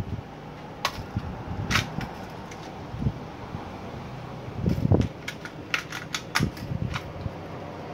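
Airsoft M1911-pattern pistol drawn from and pushed back into a rigid polymer Fobus paddle holster. Two sharp plastic clicks come early on the draw, then a run of clicks and knocks in the second half as the pistol is reholstered and snaps home.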